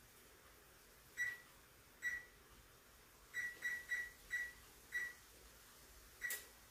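Electronic oven control panel on a gas range beeping at each key press as the oven is set to 375 degrees: eight short, high beeps, unevenly spaced, with a quick run of four in the middle.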